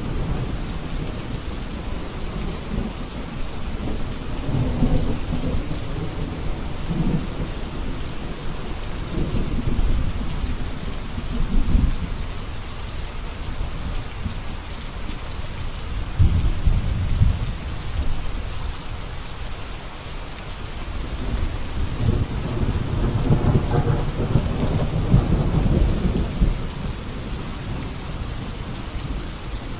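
Steady rain hissing, with low rolling thunder rumbling several times; the loudest rolls come about sixteen seconds in and again from about twenty-two to twenty-seven seconds.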